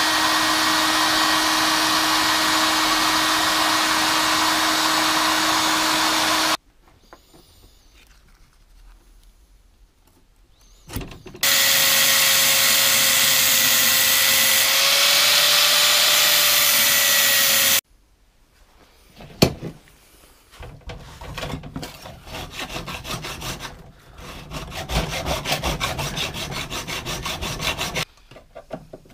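Angle grinder cutting through the metal of a Land Rover 110 door bottom in two runs of about six seconds each, a steady motor whine with a hiss of cutting, the second run higher-pitched. Then a hacksaw cutting metal in quick back-and-forth strokes to finish the cut.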